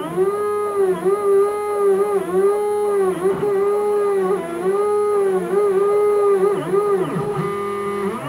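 Stepper motors of a homemade CNC router whining as the gantry moves, their pitch sweeping up and down with each short move as they speed up and slow down. The stepper noise is amplified by the rigid aluminium-extrusion frame, and the motors are not yet tuned on their Gecko G540 driver.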